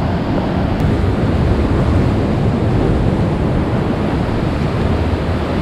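Rough sea surf breaking on a rocky shore: a steady, loud wash of waves, with wind buffeting the microphone.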